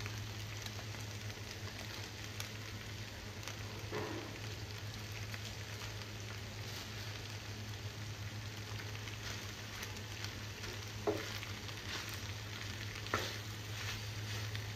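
Penne in creamy white sauce sizzling quietly in a frying pan while a wooden spoon stirs it through, with a few light knocks of the spoon against the pan.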